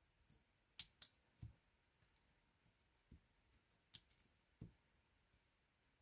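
Near silence broken by about half a dozen faint clicks and light taps from handling small paper pieces and adhesive foam dots at a craft desk.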